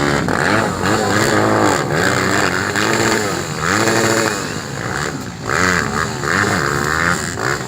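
Enduro/motocross motorcycle engines revving, the pitch rising and falling over and over as the throttle is worked.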